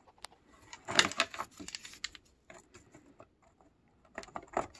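Light clicks and taps of hard plastic as the bottom plate of a Cleartrak/Workhorse vacuum's brush head is handled and fitted back on, a cluster about a second in and another near the end.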